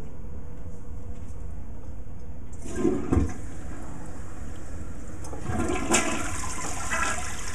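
Toilet flushing: the rush of water starts suddenly about two and a half seconds in, with a short knock just after, and swells again around six seconds as the bowl swirls.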